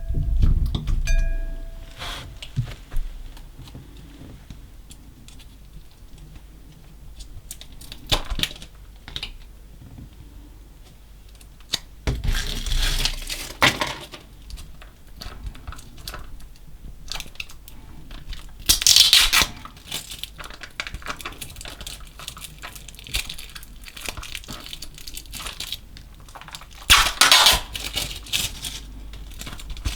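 Slime mixed with small coloured particles being squished, stretched and folded by hand: a steady run of sticky crackling and small clicks. Louder popping bursts come about twelve seconds in, near nineteen seconds and near the end.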